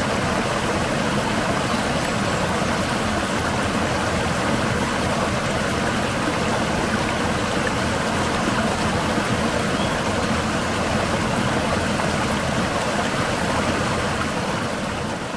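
Small stream running over rocks and a little cascade: a steady rush of flowing water, starting to fade near the end.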